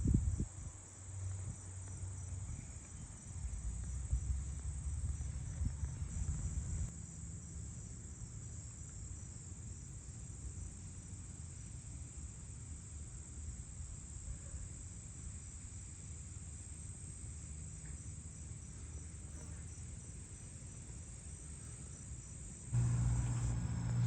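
Insects chirring steadily in a high, even drone, with some low rumble in the first few seconds. A louder low hum comes in near the end.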